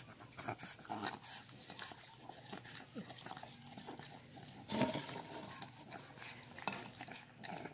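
A pug puppy eating at close range: quiet, irregular mouth clicks and smacks as it chews, with a slightly louder sound about five seconds in.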